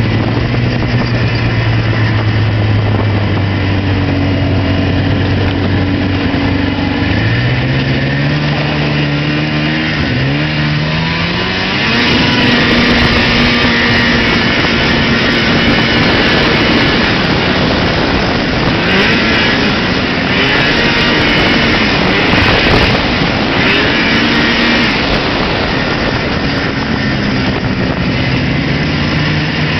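Arctic Cat Pantera snowmobile engine running under way. The engine note climbs twice about a third of the way in, then runs louder from about the middle, and eases back to a lower note near the end.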